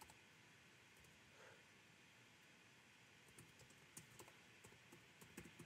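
Faint computer keyboard typing: scattered single key clicks over quiet room tone, coming more often in the second half.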